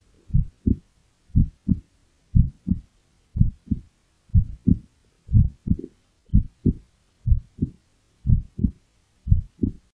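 A human heartbeat picked up through a toy stethoscope: ten paired lub-dub thumps, about one a second, a resting rate of 60 beats a minute.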